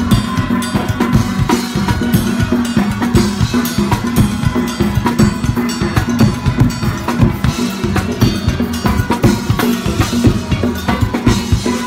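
Steel band playing: a fast, driving beat on drum kit and congas with the ringing notes of the steelpans over it.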